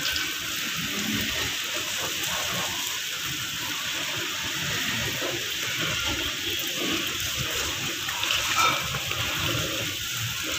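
Heavy rain falling steadily, an even, continuous hiss of water.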